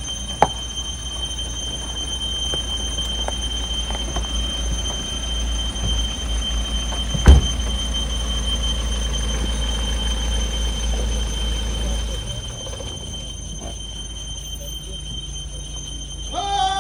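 Mahindra SUV pulling in, its engine a low rumble that fades about twelve seconds in, under a steady high-pitched whine. A single sharp thump comes about seven seconds in, and a loud voice starts just before the end.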